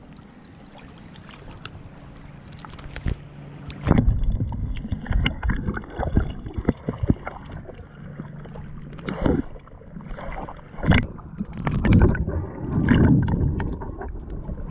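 Water moving around a GoPro action camera as it is dipped into shallow water. Light splashing at the surface gives way, about four seconds in, to muffled underwater sloshing with several loud bumps and surges as water washes over the camera.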